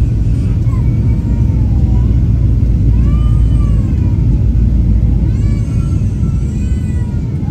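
Heavy, steady rumble inside a jet airliner's cabin as it touches down and rolls along the runway after landing. Over it, a high-pitched voice gives wavering cries several times.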